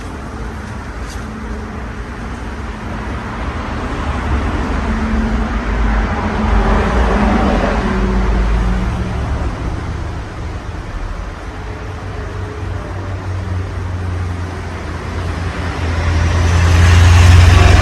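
53-inch Casablanca Halogen Star ceiling fan, fitted with four blades, running. Its draft buffets the microphone as a low rumble that swells and fades twice, over a faint steady motor hum.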